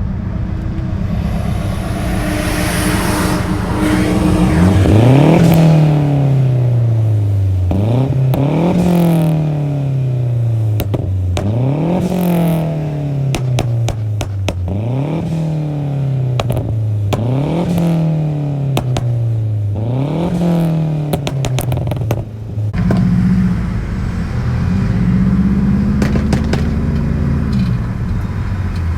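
Mazdaspeed3's turbocharged 2.3-litre four-cylinder, exhaust straight-piped through a catless downpipe, revved about six times in a row. Each rev is a quick rise and a slower fall, with popping and crackling from the exhaust as the revs drop. It settles back to idle near the end.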